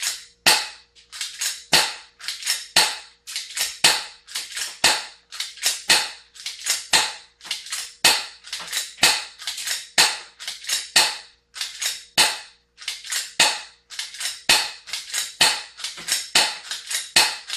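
Umarex HK P30 6 mm airsoft pistol shot after shot, about two sharp snaps a second, while a magazine of about 28 BBs is emptied.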